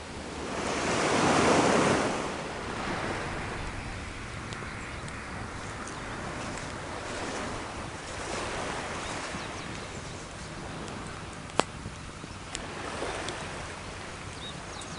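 Sea waves washing on the shore, one swelling and breaking loudly about a second in, then a steady wash. A single sharp crack from the wood fire comes near the end, with a few faint ticks after it.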